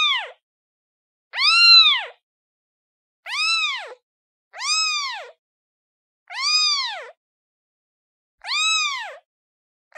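Kitten meowing over and over, calling for its mother. The meows are high-pitched and each one rises and then falls in pitch. They come regularly, about one every one and a half to two seconds.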